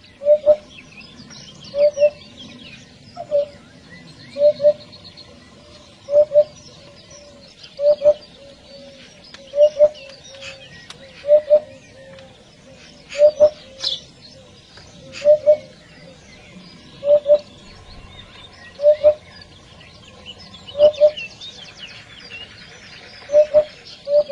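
Hoopoe calling its soft, low 'oop-oop' song, the notes mostly in pairs repeated about every two seconds. Other small birds chirp faintly behind it.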